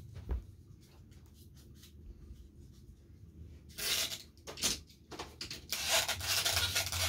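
Handling noises between laps: a few light clicks, then from about four seconds in loud rubbing and scraping, as of hands moving things on a wooden surface.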